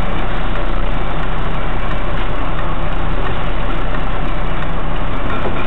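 Volvo FH lorry's diesel engine running steadily at low revs as the truck creeps forward, heard from inside the cab.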